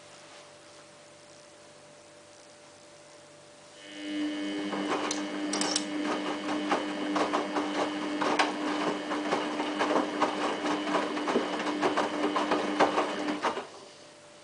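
Samsung WF8804RPA washing machine in its first rinse. After about four seconds of faint hum, the drum motor starts with a steady whine and the tumbling load makes many small clicks and knocks. After about ten seconds the drum stops.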